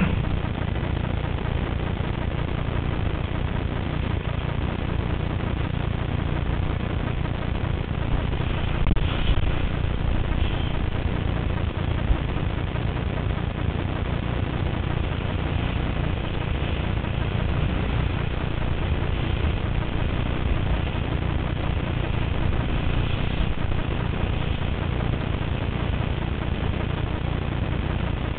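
Steady wind rumble buffeting the camera microphone while windsurfing, with water rushing and splashing past the moving board.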